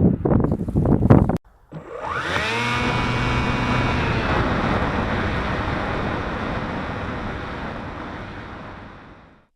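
Wind rushing over the microphone, then a sudden cut. The electric motor and belt-driven boom prop of an X-UAV One FPV plane then spool up with a rising whine, hold a steady pitch, and fade out gradually.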